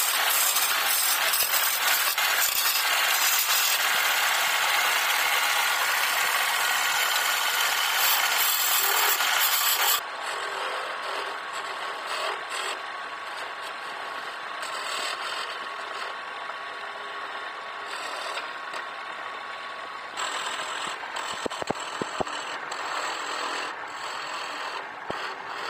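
Wood lathe turning: a chisel cutting into a spinning blank of pale and reddish wood, a steady scraping hiss of shavings coming off. About ten seconds in the sound drops suddenly and carries on quieter.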